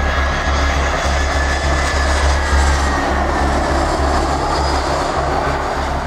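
Airbus A320-family airliner on landing approach, its jet engines running as a steady broad rush with a high whine that falls slightly in pitch as it passes.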